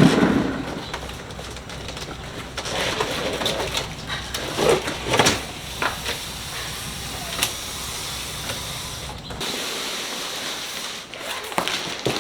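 Scattered knocks and thumps of things being handled over a steady hiss, with a low hum underneath that cuts off about nine and a half seconds in.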